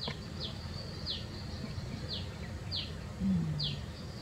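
A small bird repeating a short, high, falling chirp about six times, irregularly spaced, over a steady low background of outdoor noise. A brief low falling sound comes about three seconds in.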